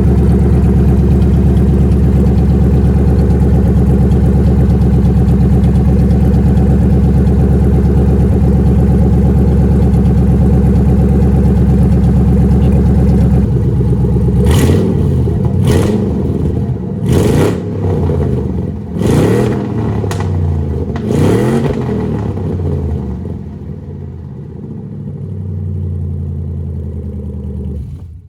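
Ford Mustang GT V8 running through its newly fitted exhaust: a steady idle, then about five quick throttle blips that rise and fall, then back to idle.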